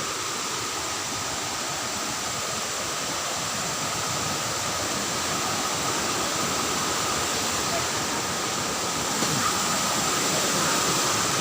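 Waterfall rushing, a steady noise that grows gradually louder, with a thin steady high tone running through it.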